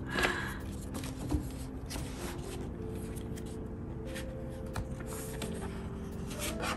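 Paper pages of a K-pop album photobook and a loose printed insert being handled and turned: soft rustles and light page clicks, with a sharper flick about a second and a half in. Faint background music with held notes plays underneath.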